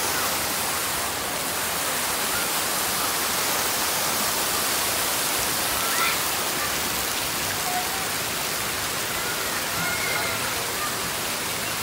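Steady hiss and splash of water pouring from a splash-pad fountain column into a shallow pool, with faint distant voices now and then.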